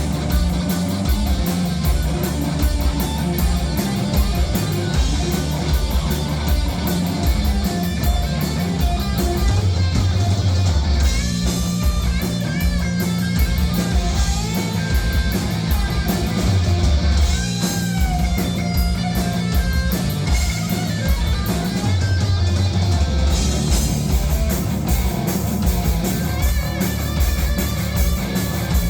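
A rock band playing live, heavy and loud, with distorted electric guitars, bass and a drum kit driving a steady beat.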